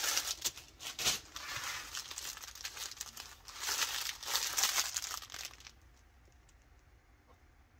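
Small plastic baggies of diamond-painting drills crinkling as they are handled, with sharp crackles, stopping about six seconds in.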